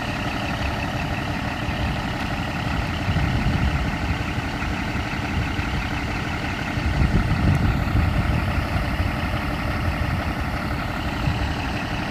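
Scania P 420 truck's diesel engine running steadily while its truck-mounted loader crane's hydraulics work the boom, with a steady whine over the engine. The sound grows louder twice, about three seconds in and again around seven seconds.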